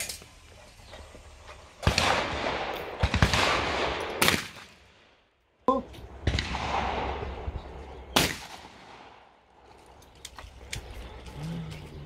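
Over-and-under shotguns firing at clay targets: several sharp shots spread through the span, each with a trailing echo.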